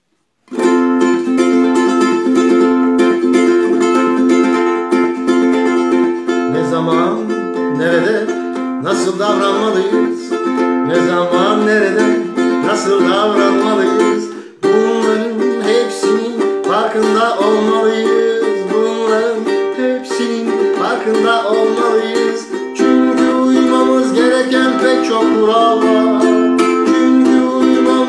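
Ukulele strumming chords in a steady rhythm, with a wordless vocal melody over it in two stretches, from about seven seconds in and again after a brief break about halfway through.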